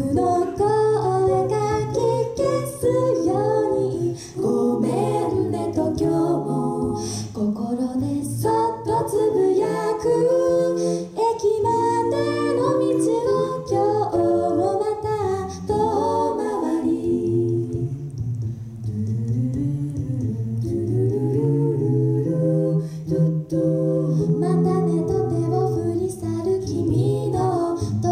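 A mixed-voice a cappella group singing in harmony, with low bass notes held under the upper voices.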